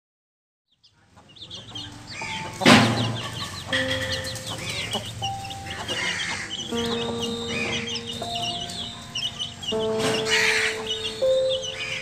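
Chickens clucking and chicks peeping while they feed, with two louder calls, about three seconds in and again near ten seconds. Background music with held notes plays under them.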